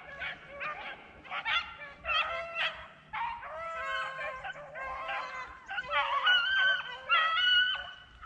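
A pack of beagles baying as they run a rabbit: several dogs' overlapping, drawn-out bawls and shorter chop barks, loudest and longest near the end.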